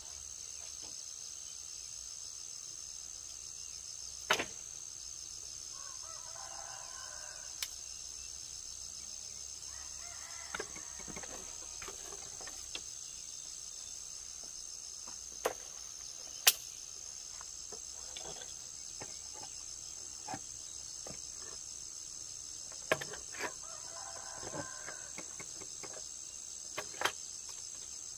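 Steady high chirring of crickets, with sharp knocks now and then and a rooster crowing a few times.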